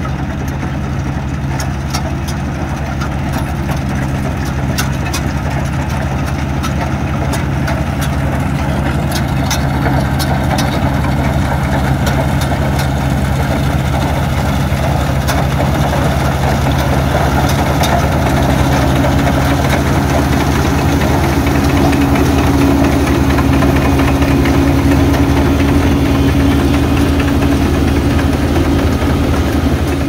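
Kubota DC-35 combine harvester's diesel engine running steadily at high throttle while harvesting rice, with scattered sharp clicks over the first dozen seconds. A steady hum joins in about two-thirds of the way through.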